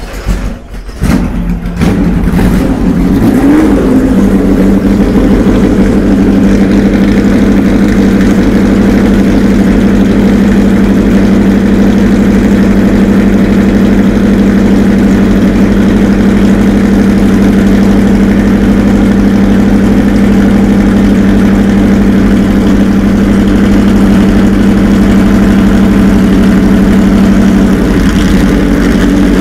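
Vintage Porsche sports-racing car's engine being started: a second or two of uneven cranking and firing, then it catches, blips once with a short rise in revs, and settles into a loud, steady idle that falters briefly near the end.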